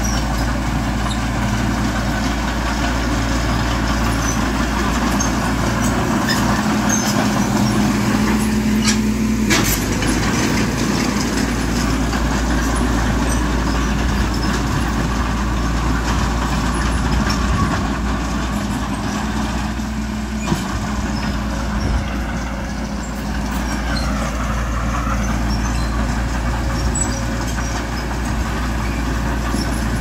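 Heavy earthmoving machinery, a bulldozer or dump truck, with its diesel engine running steadily. There is a sharp knock about nine and a half seconds in and another around twenty seconds in.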